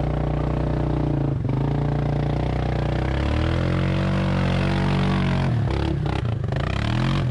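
Yamaha 700 ATV's single-cylinder engine running, steady at first, then revving up and down repeatedly through the second half, with a few brief knocks near the end.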